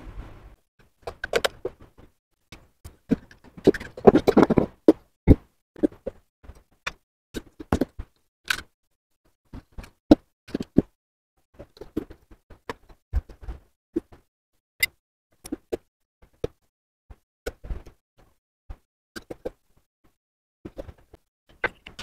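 Irregular clicks, taps and knocks of hand wiring work: a screwdriver, wires and plastic contactors being handled and set down on a bench, with a brief rustle of handling now and then.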